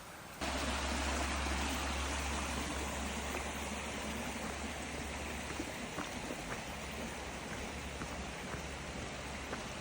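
Steady rushing of water in a flowing mountain creek, with a few faint ticks over it.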